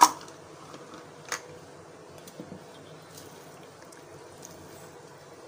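A sharp knock against a steel mixing bowl at the very start, a smaller one about a second later, then faint quiet mixing of thick cake batter.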